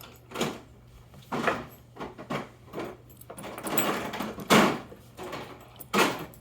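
Irregular metal clicks and scrapes from a Paclock 90A Pro padlock and small tools being handled during disassembly, with a longer, louder scrape a little past the middle.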